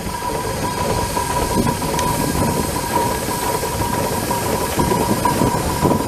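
Cable-hauled balance plough being drawn past on its steel wire rope, rattling and clanking over the ground, with a steady high whine.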